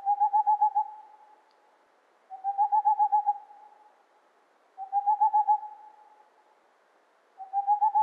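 Boreal owl's staccato song, the male's territorial song: four bursts of rapid hoots, about eight notes each, all on one pitch. Each burst lasts about a second, and they come about two and a half seconds apart.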